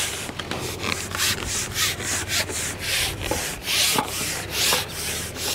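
Carbon fishing pole shipped back hand over hand while a hooked fish is brought in, giving repeated rubbing strokes, about two a second.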